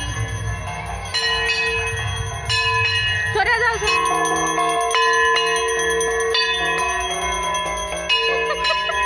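Bells ringing continuously, struck again and again so that their tones overlap, with a short warbling sound about three and a half seconds in.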